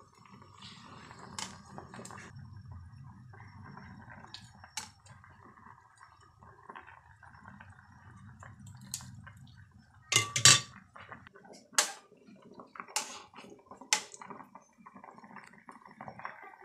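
Long metal ladle stirring soup in an aluminium pot: soft sloshing of the broth with about seven sharp clinks of the ladle against the pot, the loudest about ten seconds in.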